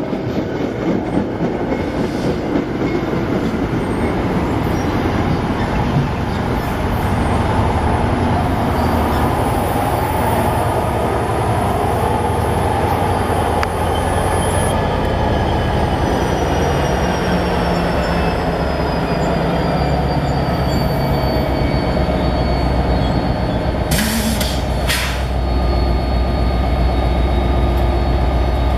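A train rolling past: a steady rumble of wheels on rail with a faint high wheel squeal through the middle and a low diesel drone building in the second half. Two sharp knocks come late on.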